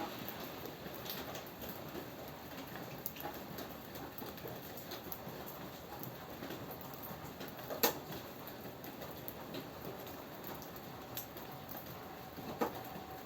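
Steady rain falling, with scattered drops tapping sharply on a surface. The loudest tap comes about eight seconds in and another near the end.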